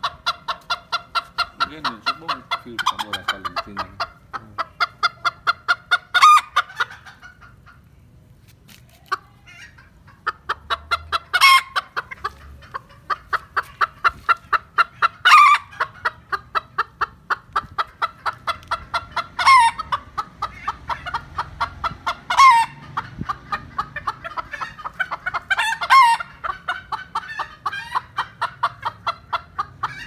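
Silver Sebright bantam chickens shut in plastic crates, clucking in a fast even run of about four or five short clucks a second, with a pause around eight seconds in. Every few seconds a louder, sharper squawk that falls in pitch cuts through.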